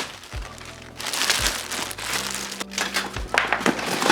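Chair packaging crinkling and rustling as it is handled, over background music with a steady beat.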